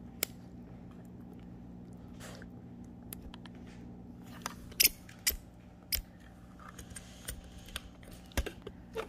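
Puppy chewing on a chew toy: irregular clicks and crunches of teeth on the toy, a few louder than the rest, over a steady low hum.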